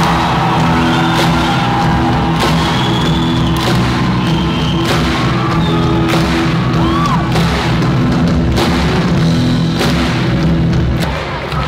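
Live rock music played loud through an arena sound system: sustained low chords with a strong drum hit about once a second, in a large echoing hall.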